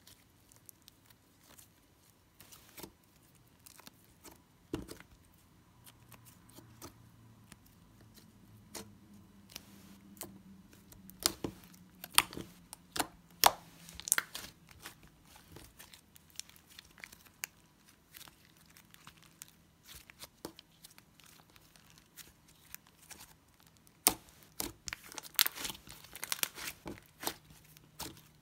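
Hands kneading and stretching black butter slime, softened again with lotion, on a tabletop: scattered sticky clicks and crackles as the slime is pressed and pulled. They come in clusters partway through and again near the end, with quieter stretches between.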